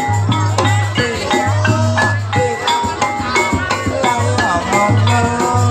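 Loud dance music with a steady beat: short pitched melodic notes over a pulsing bass, with jingling bells and rattle-like percussion.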